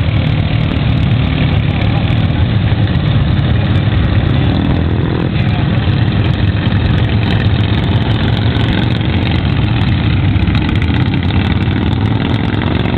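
Riding lawn mower's small engine running steadily under load as the mower drives through shallow water.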